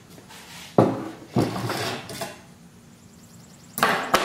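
Handling noise: a few sharp clattering knocks, about a second in, again shortly after, and twice more near the end.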